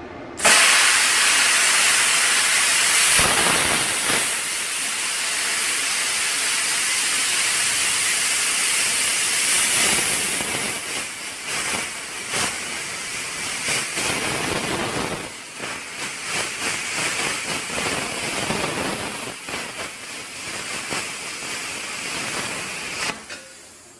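Vevor Cut50P air plasma cutter with pilot arc cutting 1/8-inch steel plate at 25 amps and 50 psi: a loud, steady hiss of compressed air and arc that starts suddenly. It becomes more uneven and crackly in the second half and stops shortly before the end.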